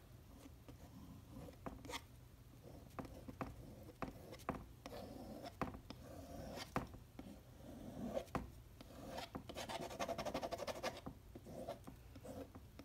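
Faint scraping and rubbing of paint being worked onto a canvas board by hand, with scattered small taps. About nine seconds in there is a quick rattling run of ticks lasting a second or two.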